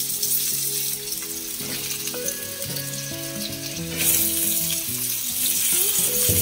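Raw potato chunks sizzling as they fry in hot mustard oil in a steel kadai. The sizzle surges louder about four seconds in, as more potato pieces are dropped into the oil.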